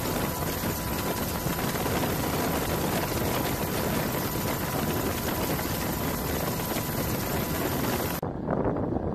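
Steady helicopter engine and rotor noise with a thin constant whine, heard from aboard. Just before the end it cuts abruptly to a duller rumble like wind on the microphone.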